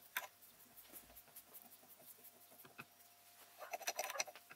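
Faint scattered clicks and ticks of a tap and drill chuck being turned by hand on a mini mill, sped up four times. Near the end comes a denser flurry of clicking and rattling as the hand works the chuck.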